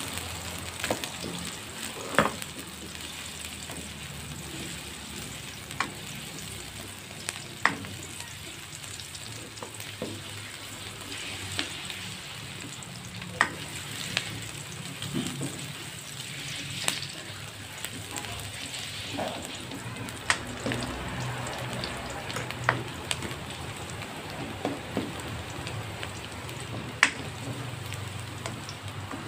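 Sliced garlic and shallots sizzling in a little oil in a wok, stirred with a spatula, with sharp clicks every few seconds where the spatula knocks the pan.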